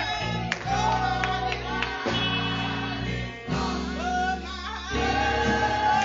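Live gospel music: a singer over a church band with guitar and sustained bass notes that change every second or so.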